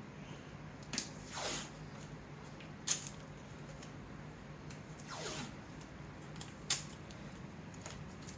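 Blue painter's tape being pulled off the roll and torn off in strips: two short rips that fall in pitch, a little over a second in and about five seconds in, with a few sharp clicks between them, over a faint steady hum.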